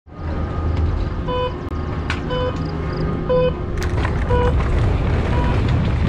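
Downhill race start timer beeping a countdown: four short beeps about a second apart. It is followed by the mountain bike rolling out, with wind rushing over the helmet camera and a couple of sharp clicks along the way.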